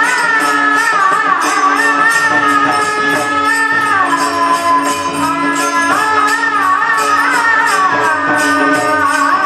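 Marathi kirtan devotional music: a woman's voice sings a gliding, ornamented melody over a steady held drone note, with small hand cymbals keeping an even beat.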